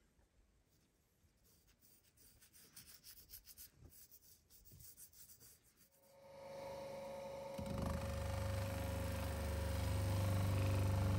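Faint rubbing of a gloved fingertip spreading paste over a steel axe head. About six seconds in, an electric bench polisher starts and runs up to a steady whine. From about a second and a half later it hums louder and lower as the axe head is pressed against its spinning buffing wheel.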